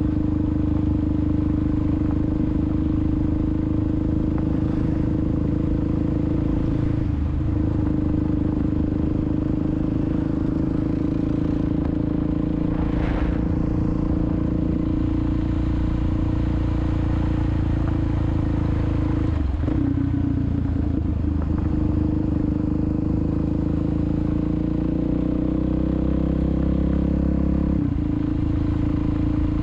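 2016 Suzuki DRZ400SM's single-cylinder four-stroke engine running steadily under way on a gravel road. Its note breaks briefly about a quarter of the way in, two-thirds of the way in and near the end.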